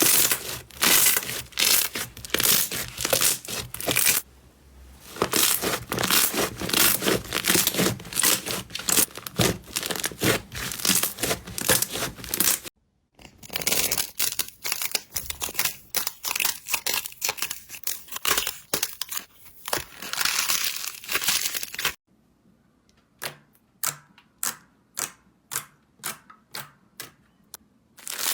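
Slime being squeezed and pressed by hand, making dense crackling and crinkling. About three-quarters through it changes to separate sharp pops, about two a second, with quiet between them.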